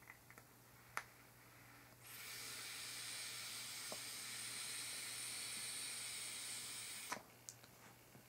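Steady hiss of air drawn through a Trident dripping atomizer on an e-cigarette mod during a long hit. It starts about two seconds in, lasts about five seconds and cuts off suddenly. A sharp click comes about a second in.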